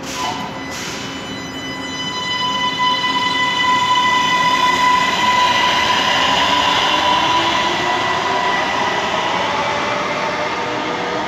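CSR-built three-car metro train pulling out of the station. Its traction motors give an excessively noisy whine of several steady high tones over the rumble of the train, which swells over the first few seconds and then slowly fades as the train leaves. Two short hisses come right at the start.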